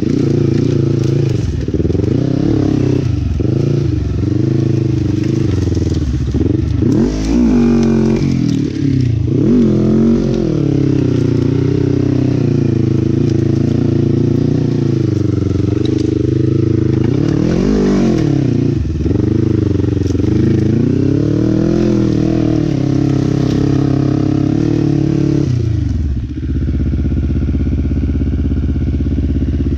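Sport quad (ATV) engine riding under changing throttle, its pitch rising and falling again and again. Near the end it settles into a steady, even note.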